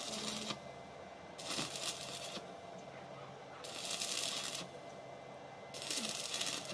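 Stick arc welding on a steel exhaust pipe: the arc crackles and sizzles in bursts of about a second, stopping and starting about every two seconds as the welding rod lays short welds to join the flexible pipe.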